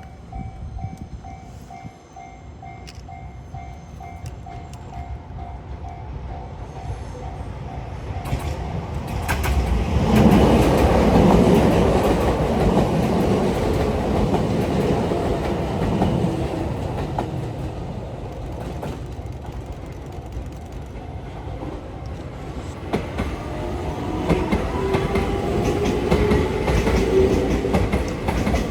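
A level crossing bell ringing in a steady repeating pattern, stopping about a third of the way in. Then Kobe Electric Railway 5000 series trains run past through the crossing, one after the other: the first, loudest about ten seconds in, with the wheels clicking over the rail, and the second coming up near the end with a whine.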